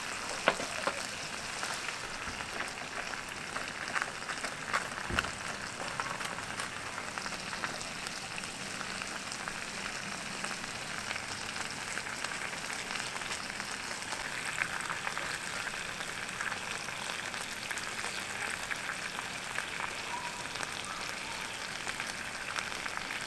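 Food sizzling on a multi-griddle pan over a camp burner: a steady frying hiss with fine crackles. A few light clicks come in the first five seconds or so.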